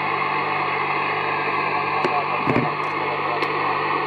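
Steady static hiss from a CB radio transceiver's speaker with the squelch open, no station talking, and a few light clicks about halfway through.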